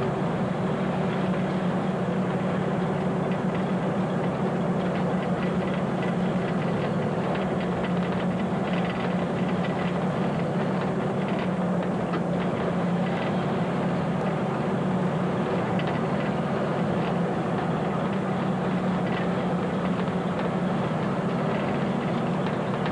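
1983 Mack fire engine running steadily on the road, heard from inside the cab, a constant low engine note with light rattling over it.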